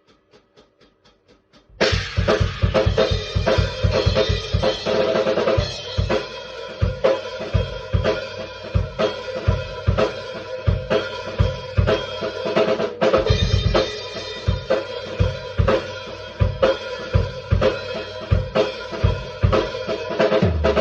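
Drum-kit-led music. A few faint, quick, even ticks come first, like a count-in; then a full drum beat with a heavy kick and snare starts about two seconds in and carries on, with a momentary drop-out about thirteen seconds in.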